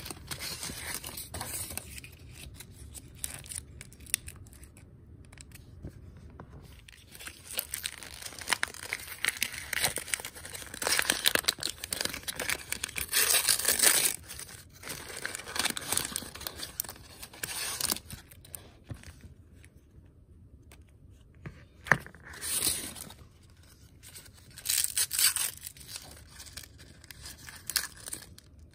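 Crinkly toy wrapping being handled and peeled open by hand: irregular crinkling and tearing in uneven spurts, loudest around the middle, with one sharp click about three-quarters of the way through.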